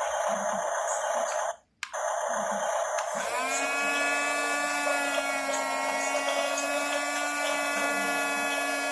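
Small electric drive motors and gearing of a radio-controlled model bulldozer whining. The sound cuts out briefly about a second and a half in; about three seconds in a steady pitched whine starts with a quick rise and then holds.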